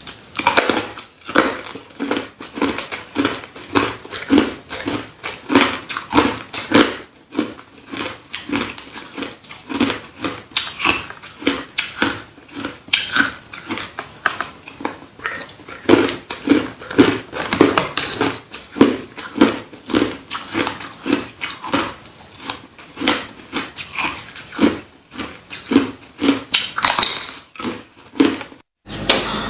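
Hard ice being bitten and chewed close to the microphone: a steady run of loud, sharp crunches, a couple or more each second.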